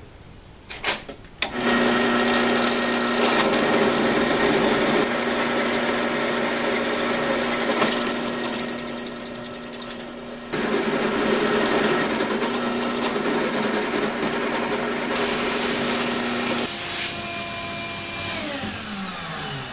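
Benchtop drill press drilling 8 mm through-holes in a cast aluminium spindle mount: a couple of clicks, then the motor starts about a second and a half in and runs steadily as the bit cuts. Near the end it is switched off and winds down with a falling pitch.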